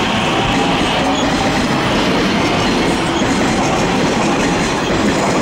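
81-717/714-series metro train running along the platform, a loud steady rumble of wheels and motors on the track.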